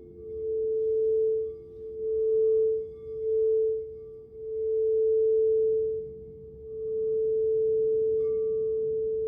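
Crystal singing bowl sounding one sustained pure note that swells and fades in waves, about five or six times.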